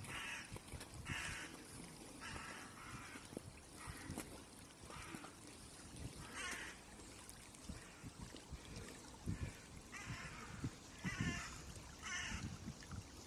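Harsh bird calls, about a dozen short ones at uneven intervals, over the steady sound of a shallow stream flowing over stones.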